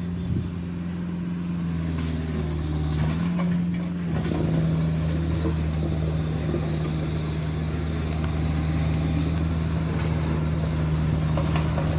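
Excavator engine running steadily at work, with a low hum whose note shifts and grows a little louder about four seconds in.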